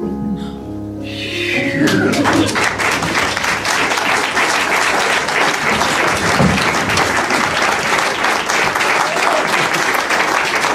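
A held keyboard chord rings out for the first second or so, then audience applause swells in and carries on steadily.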